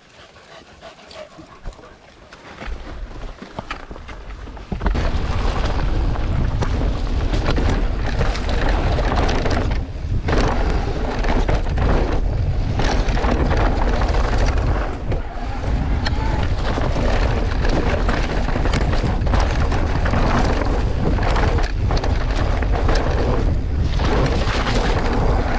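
Wind buffeting a helmet- or bike-mounted camera microphone, with rattling tyre and trail noise from a mountain bike riding fast downhill, starting suddenly about five seconds in.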